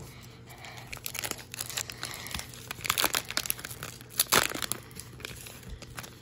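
Plastic wrapper of a baseball card pack crinkling and crackling as it is pulled open and the stack of cards is slid out. The loudest crackles come about three and four seconds in.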